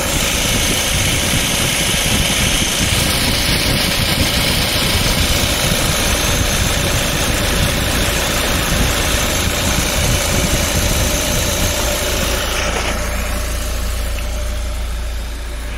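Audi A4 B8 TFSI petrol engine idling with its two electric radiator cooling fans spinning, a steady rush of air over the engine's hum. The newly fitted main fan is running normally alongside the smaller one. The airy rush drops off about thirteen seconds in, leaving mostly the idle.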